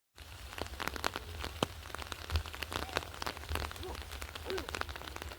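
Rain falling, with many individual drops striking close by at an irregular rate over a steady low rumble.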